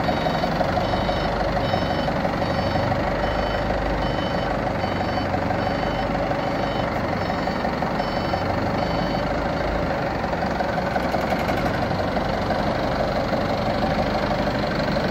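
Forklift engine running steadily while it maneuvers a load, with the forklift's beeper sounding a steady series of short high beeps that stops about nine seconds in.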